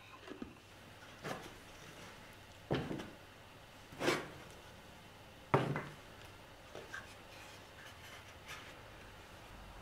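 Small hardwood box with wooden hinges being handled: four distinct wooden knocks about a second and a half apart, with a few lighter taps, as the box is moved about and its lid opened.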